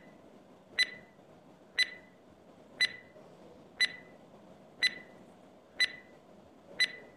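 Countdown timer sound effect: a short, high beep-tick repeating once a second, marking off the seconds of the countdown.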